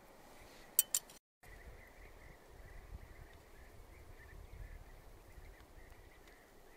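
Two sharp clicks of metal cutlery about a second in, as a spoon works at grilled peach halves beside a fork. Then a faint outdoor background with a thin, wavering high chirring, like insects.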